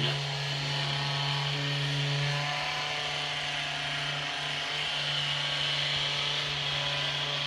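Handheld high-speed vibration massager buzzing steadily as it is worked over the calf muscle, one constant motor tone.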